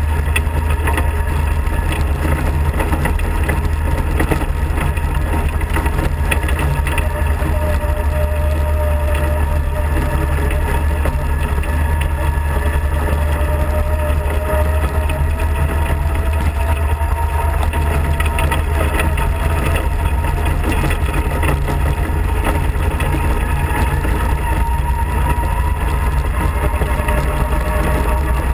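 Off-road kart's engine running steadily under way, with a deep rumble and a faint whine that slowly sinks and then rises in pitch as the speed changes.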